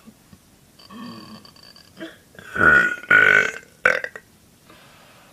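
A girl belching loudly: a long burp about two and a half seconds in that breaks off for a moment and carries on, then a short one just after, with a quieter throaty sound about a second in.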